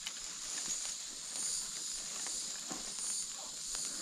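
Forest ambience: a steady high-pitched insect drone that swells slightly now and then, with faint scattered rustles and clicks.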